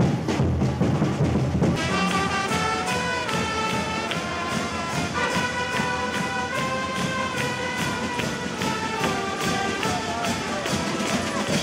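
Band music with brass and drums: a steady drumbeat, with brass instruments coming in about two seconds in to play a melody of held notes over it. The music cuts off suddenly at the end.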